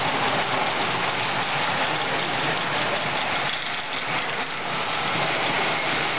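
Electric model trains running steadily around the layout, a continuous whir of toy train motors and wheels on three-rail track.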